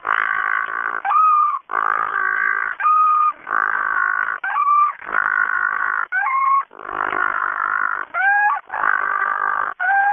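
Little penguin braying: harsh, buzzy notes of about a second each, alternating with short rising squeaky notes, in a steady rhythm of roughly one cycle every second and a half to two seconds.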